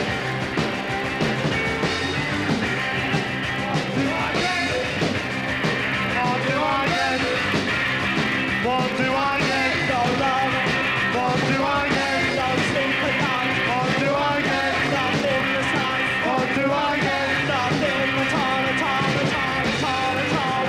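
Punk rock band playing live, with drums and electric guitar under a male singer's voice.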